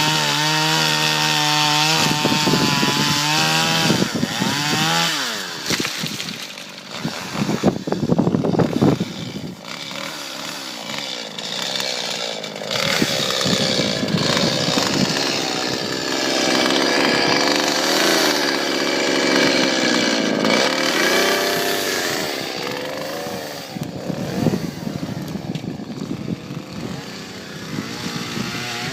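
Chainsaw engine running at high revs, then cutting wood: its pitch drops and wavers as the chain loads up in the cut, and rises again again and again.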